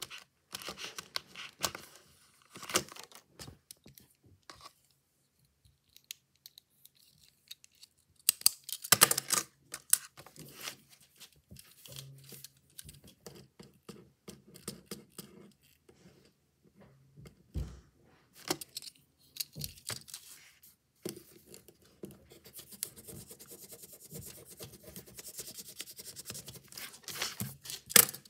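Hands handling a plastic pack of FriXion Clicker gel pens, with scattered clicks, knocks and rustles of the plastic as a pen is taken out. Later a gel pen tip scratches steadily across paper for several seconds as a word is written.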